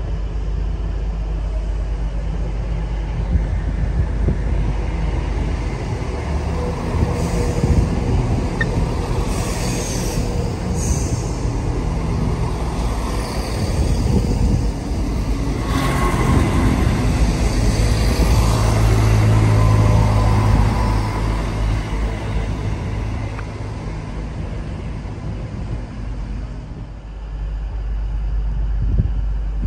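Diesel train running by with a steady low rumble that grows louder in the middle and eases off near the end.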